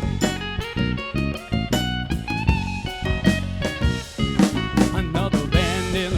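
Acoustic band playing an instrumental passage: guitars with steady percussion, and a lead line that bends its notes up and down.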